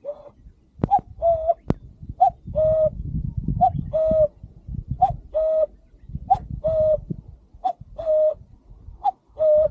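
Common cuckoo calling its two-note "cuck-oo", a short higher note then a longer lower one, repeated about seven times at an even pace.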